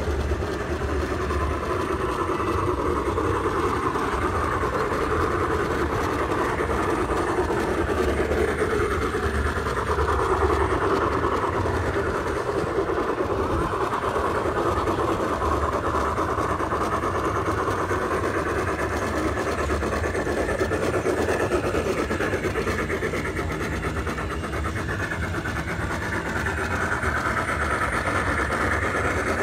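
Garden-scale model trains running on outdoor track: a steady, continuous rolling and motor noise with a low rumble underneath.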